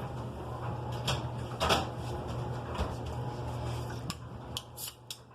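Washing machine running with a steady low hum, with a few light knocks and clicks over it: a louder one about a second and a half in and several near the end.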